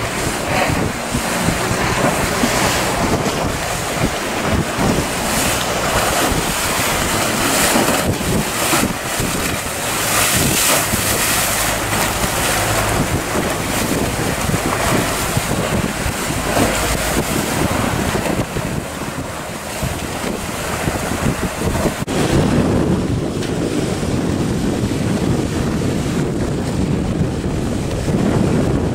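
Wind buffeting the microphone over choppy, wave-tossed sea water. About two-thirds of the way through the sound changes abruptly: the hiss drops away and a lower, duller rush takes over.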